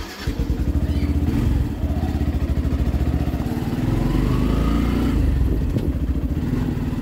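Motorcycle engine running as the bike is ridden, with a steady, rapid pulsing from the exhaust.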